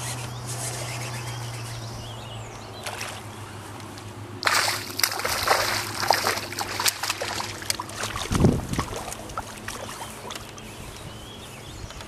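A hooked largemouth bass thrashing at the water's surface beside a boat, in irregular bursts of splashing and sloshing starting about four seconds in and flaring again later.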